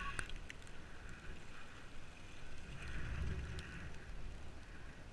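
Bicycle rolling along an asphalt path: a low rumble of tyres and wind on the bike-mounted camera's microphone, with a few faint ticks.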